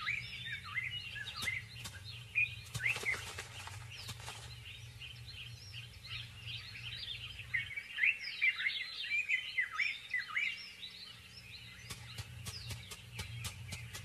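Many small birds chirping: a dense run of short, quick sweeping calls, overlapping and busiest past the middle, over a steady low hum. A few faint clicks come in short clusters.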